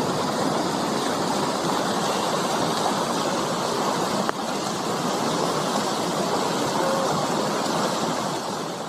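Steady rushing noise of fast-flowing water.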